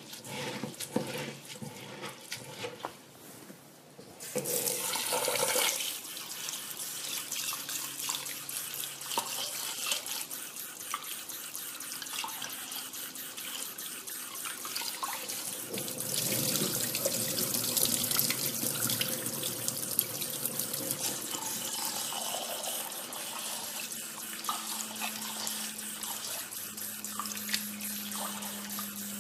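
Japanese rice being washed by hand in a stainless steel bowl: wet grains rubbed and scrunched, then a kitchen tap comes on suddenly about four seconds in and runs steadily into the bowl as the rice is rinsed.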